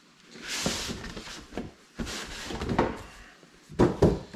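Cardboard product box being slid out of its cardboard sleeve and handled: two stretches of scraping and rustling, then a few sharp knocks near the end.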